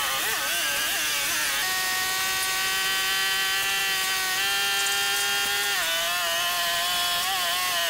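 Two-stroke chainsaw running at high revs. Its pitch wavers at first, then holds steady, and steps down about six seconds in.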